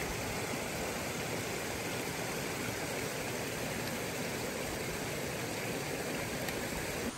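Steady, even rush of flowing water from a mountain stream.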